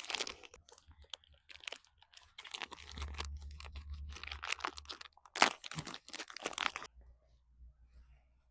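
Plastic packaging crinkling and tearing as a sucuk sausage is unwrapped, in irregular bursts, loudest a little past halfway.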